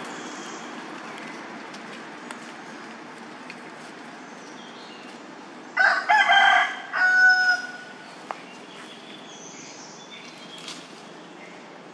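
A rooster crowing once, about six seconds in, for under two seconds, over a steady background hiss.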